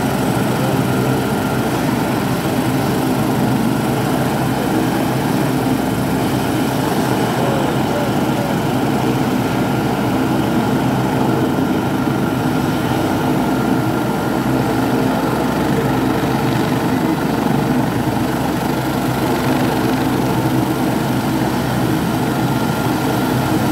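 Airbus H175 twin-turbine helicopter running on the ground with its rotors turning: a steady, loud rotor and engine noise with a thin high turbine whine, unchanging throughout.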